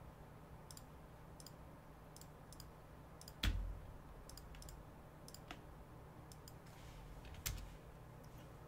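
Faint, scattered computer mouse clicks, with a louder click and a dull thump about three and a half seconds in and another near the end.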